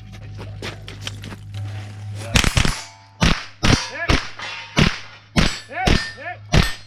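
Rapid, irregular string of small-calibre rimfire rifle shots, about ten sharp cracks over the last four and a half seconds, some followed by a brief ringing tone, over a steady low hum.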